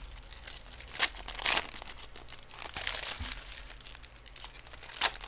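Plastic wrapping of trading-card boxes and packs crinkling and tearing as it is handled and opened, in irregular rustles with louder ones about a second in, shortly after, and near the end.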